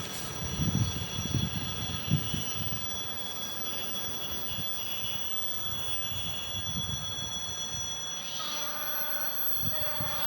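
A train's wheels clattering over rail joints as it passes, with low knocks about every 0.7 s early on over a steady rumble. Faint steady ringing tones come in near the end.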